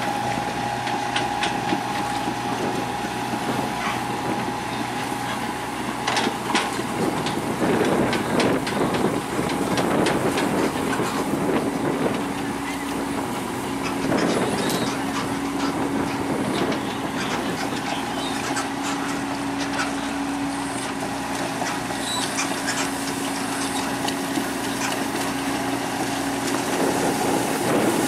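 Heavy diesel machinery running steadily, with a whine that drops to a lower steady pitch about eleven seconds in and occasional clanks.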